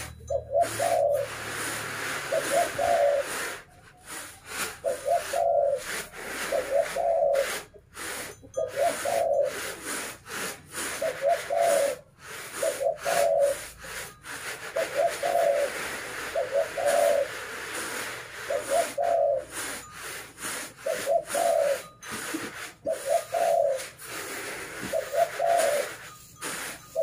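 Unhusked rice grain rustling on woven bamboo winnowing trays, a steady hiss as the grain is tossed and shaken. Over it a bird calls in short low paired notes, repeated about every two seconds.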